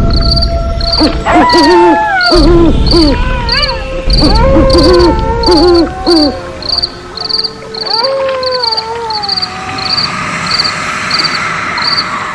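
Night-time sound effect: crickets chirping in a steady, regular pulse, with owl calls, a series of falling, wavering hoots, over it. A loud, low rumbling rustle runs under the first half.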